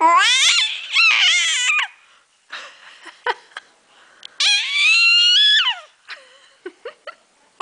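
Four-month-old baby squealing loudly: two quick shrieks rising in pitch at the start and a longer high squeal about halfway through, with short softer gurgles and coos between. These are playful, happy squeals, not crying.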